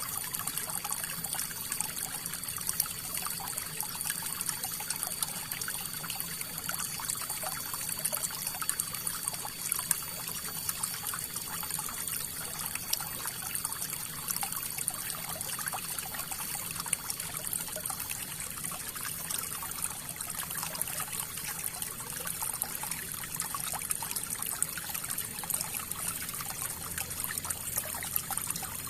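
River water flowing: a steady trickle, made of many small splashes, with no deep rumble.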